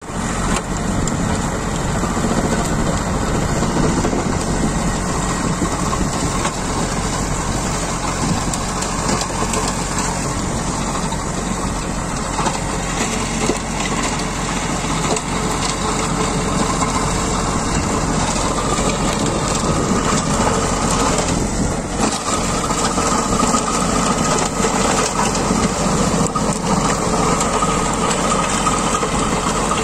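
Tractor-driven stone crusher grinding and breaking loose field stones as it is pulled through stony ground: a steady, dense clatter and crunching of rock over the tractor engine running under load.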